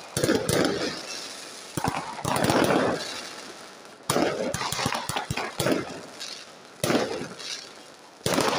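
Fireworks exploding overhead: about seven loud bangs at irregular intervals, each trailing off in a long echoing rumble.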